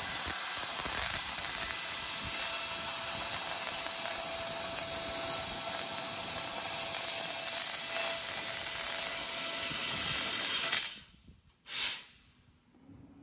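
A 30 kW fiber laser cutting 30 mm aluminium plate, a steady hiss of assist gas jetting through the cut. The hiss cuts off about eleven seconds in, and one short burst of gas follows just after.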